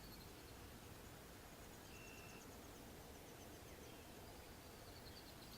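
Near silence: faint outdoor background with a thin, high chirping trill in the middle and a brief high chirp.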